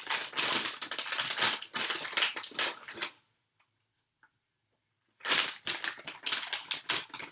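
Dry dog treats crunching and crackling as they are handled and crumbled: a rapid run of crisp crackles, a pause of about two seconds, then more crackling.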